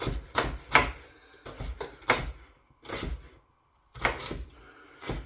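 Kitchen knife chopping onion on a cutting board: a string of sharp, irregularly spaced strokes as the onion is cut into rough pieces.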